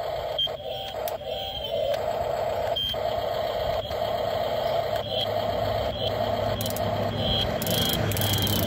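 Electric drive motors and gearboxes of a Double E 561 1/16-scale RC excavator whining steadily as the boom and bucket move, with a few short high beeps and light clicks in between.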